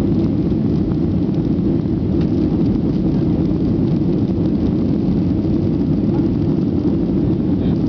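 Steady low rumble of a Boeing 737-800's CFM56 turbofan engines at climb power just after takeoff, heard from inside the passenger cabin.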